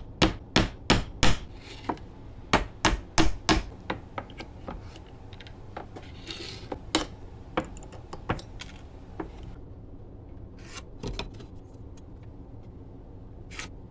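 Claw hammer tapping on a stapled pine board: a quick run of about a dozen sharp knocks in the first three or four seconds, then scattered lighter clicks and knocks as the board and the loose staples are handled, with a brief scrape about six seconds in.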